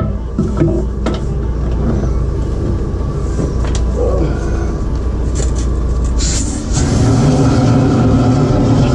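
Engine of a high-pressure drain jetter running steadily. About two-thirds of the way through, its note changes and gets louder. Scattered light clicks and knocks come from the jetter hose being handled at the reel.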